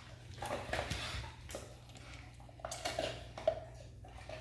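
Scattered light clinks and clatters of small hard objects in a couple of short bunches, over a faint steady low hum.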